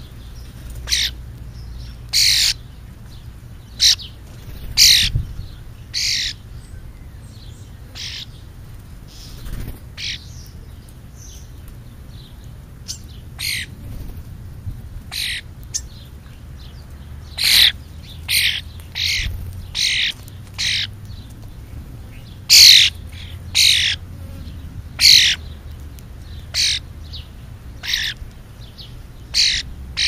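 Starlings, sparrows and crows feeding on the ground, giving short, harsh, high-pitched calls, about twenty of them scattered irregularly, over a low steady hum.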